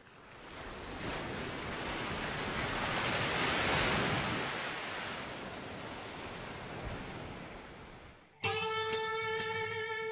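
Sea surf washing, swelling up and then fading away over about eight seconds. Near the end, plucked guitar music starts abruptly with a steady run of notes.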